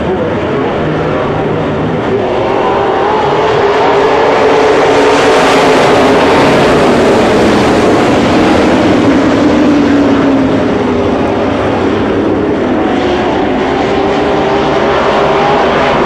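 A pack of USRA B-Modified dirt-track race cars running their V8 engines at racing speed, the engine notes rising and falling as they go through the turns. It gets louder about four seconds in as the pack comes close, then eases off a little after ten seconds.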